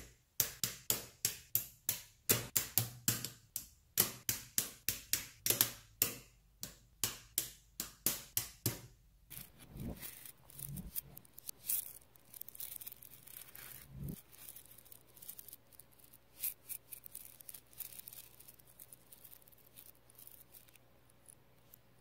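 Small magnet balls clicking together: sharp clicks at about four a second for the first nine seconds, then softer, irregular clicking and rattling of a mass of tiny magnet balls being handled.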